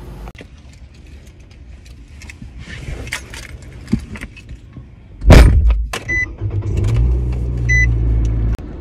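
Keys jangling and clicking, then a car door slams shut about five seconds in. A short beep sounds twice while the car's engine runs with a steady low hum, which cuts off abruptly near the end.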